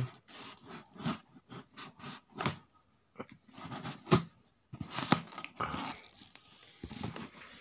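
A blade slitting packing tape and cardboard along the sides of a shipping box: irregular scraping and rustling strokes with a few sharp knocks, the loudest about four seconds in.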